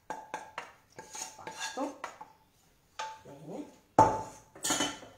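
A utensil scrapes and taps against a metal frying pan as risotto is scraped out onto a plate: a quick run of clicks and scrapes with a light metallic ring. About four seconds in there is a loud metallic clank, then a short clatter.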